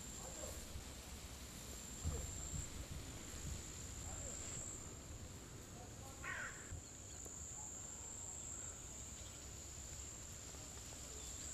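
Insects chirring steadily in a continuous high-pitched buzz over a low outdoor rumble, with a soft thump about two seconds in and a brief faint sound about six seconds in.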